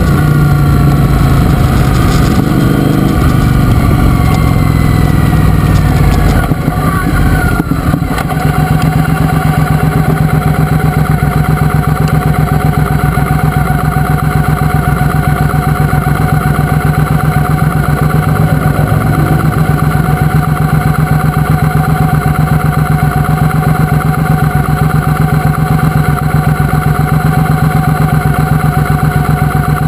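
Triumph Speedmaster's parallel-twin engine, riding and easing off over the first several seconds, then idling steadily with an even pulse once the bike is stopped.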